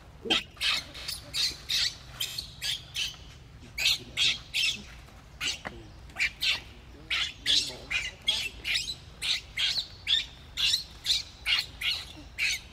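Baby macaque screaming in distress as its mother handles it: a rapid run of short, high-pitched squeals, about three a second.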